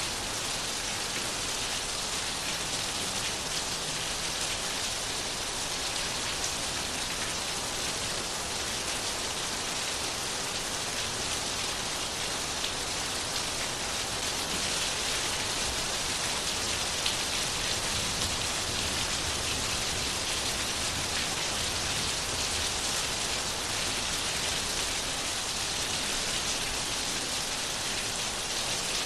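Steady rain falling and pattering on a surface, an even hiss of many small drops.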